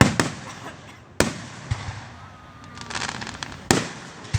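Fireworks going off: a series of sharp bangs, two close together at the start and more about every second or two after, each trailing off in an echo, with a stretch of crackling about three seconds in.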